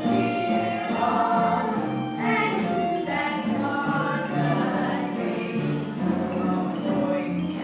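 A group of voices singing together in a stage-musical number, with instrumental accompaniment.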